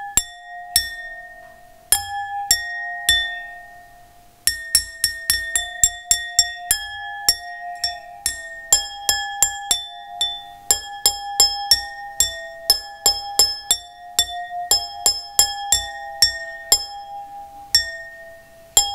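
Wine glasses of three sizes, one holding water, struck with a thin stick to play a beat pattern; each strike gives a clear ringing tone, on three different pitches. The strikes are spaced out at first and come in quick runs from about four seconds in.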